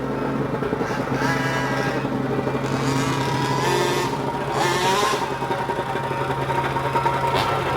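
Small two-stroke petrol engine of a 1/5-scale RC car idling steadily and blipped up in revs briefly three times.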